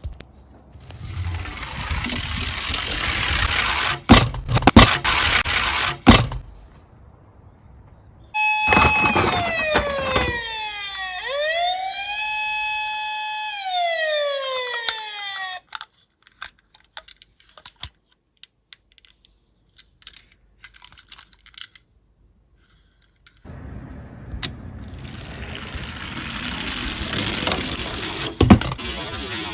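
Die-cast toy cars rolling down a slope with a steady rumble and a few sharp knocks. In the middle comes a siren sound of about seven seconds whose pitch falls, climbs back and holds, then falls again, followed by scattered light clicks before another car rolls down.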